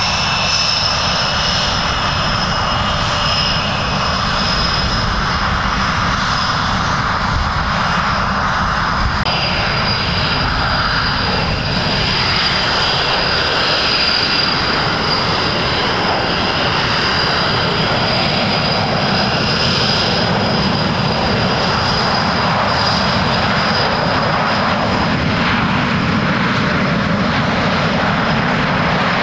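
Panavia Tornado's twin RB199 turbofan engines running at taxi power as the jet rolls along the taxiway: a loud, steady high whine over a rumble.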